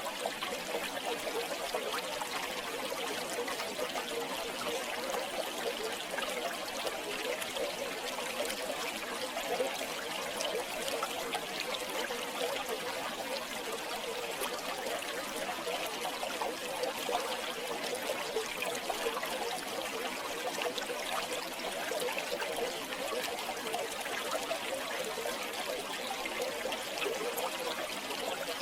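River water flowing and trickling steadily, an even babble with small splashes.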